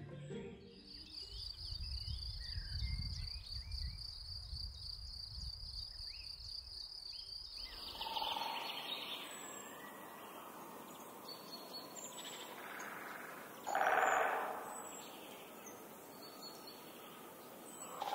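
Forest ambience. First a steady, wavering high whine over a low rumble, then scattered birds chirping over a faint outdoor hiss, with a brief louder rushing swell about fourteen seconds in.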